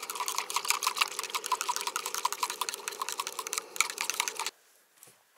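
Handheld electric milk frother whisking milk for a cappuccino: a steady motor hum with dense, rapid clicking and rattling, switched off abruptly about four and a half seconds in.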